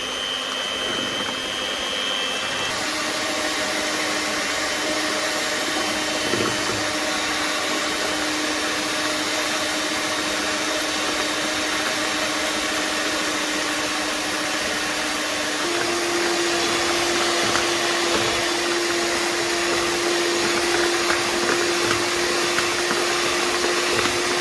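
Electric hand mixer running steadily, its beaters whisking chocolate cake batter in a glass bowl. About two-thirds of the way through, the motor's hum steps up slightly in pitch and gets a little louder.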